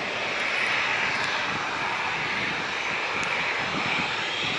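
Twin Rolls-Royce Trent 7000 turbofans of an Airbus A330-900neo at take-off thrust as the airliner climbs away: a steady jet engine rush.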